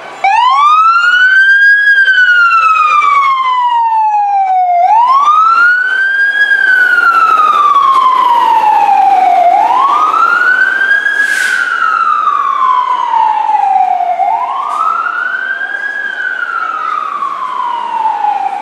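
Emergency vehicle siren sounding a slow wail: a quick rise in pitch, then a long slide down, repeating about every five seconds. A brief hiss cuts in about eleven seconds in.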